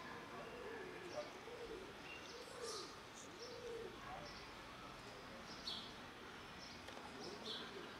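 A dove cooing: a run of about five rising-and-falling coos, roughly one a second, stopping about four seconds in, with small birds chirping now and then.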